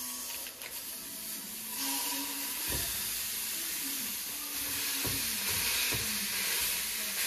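Raw ground beef and chopped vegetables sizzling in a hot skillet on a gas stove, the sizzle growing louder about two seconds in as the meat goes down, with a few dull knocks as it is stirred.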